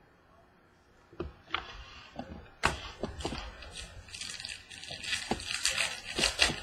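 Foil trading-card pack wrapper crinkling and tearing as a pack is opened, with cards being handled. A few sharp clicks start about a second in, then a run of crackling from about two and a half seconds in.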